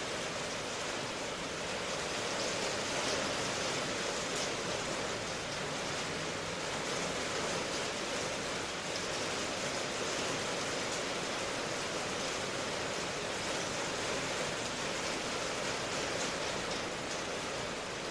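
Steady, even rain noise, a continuous hiss with no distinct drops or thunder.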